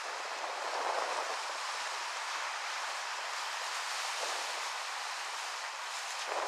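Wind and surf on an open shore: a steady rushing noise that swells slightly about a second in, around four seconds in, and again near the end.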